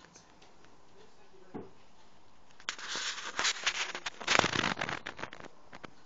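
Front-loading washing machine running with its drum turning, a low steady sound throughout. From about three seconds in, for two and a half seconds, a louder stretch of crackling and scratching with many small clicks.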